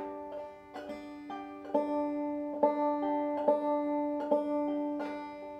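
Deering Goodtime open-back five-string banjo played clawhammer style, a slow bum-diddy rhythm exercise: a strong strike a little under once a second with lighter notes between, the strings ringing on underneath.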